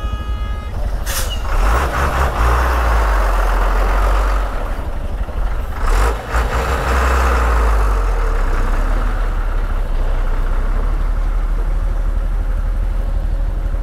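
Motorcycle on the move: a steady engine and wind rumble on the microphone. A short beep sounds at the very start, and brief sharp hissing noises come about one second and six seconds in.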